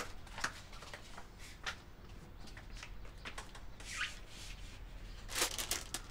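A door being opened, with a few soft scuffing footsteps in slide sandals. Near the end comes the crinkling rustle of a bouquet's cellophane wrapping being picked up.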